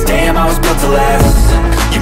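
Hip hop backing music with heavy bass and a steady beat.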